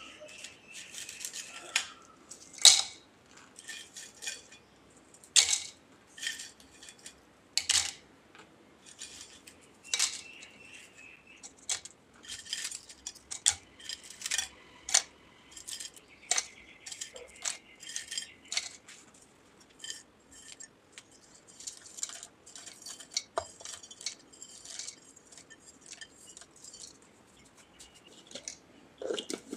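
Crisp triangular chips being snapped by hand and dropped into a small plastic grinder jar: irregular sharp crackles and light clattering throughout.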